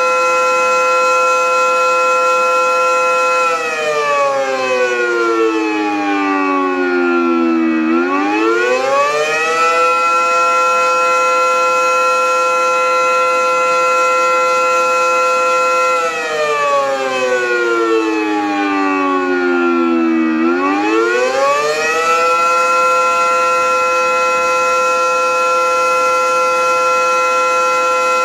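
Air raid siren sounding during a test: a loud, steady high chord-like tone whose pitch sinks for about four seconds and climbs back, twice, in a slow wail cycle.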